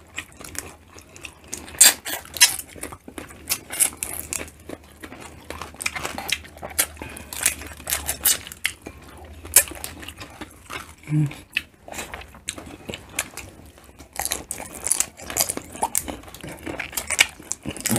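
Close-up eating sounds of boiled shrimp and crab: chewing and biting, with many irregular crunches and wet mouth clicks. A short low hum about eleven seconds in.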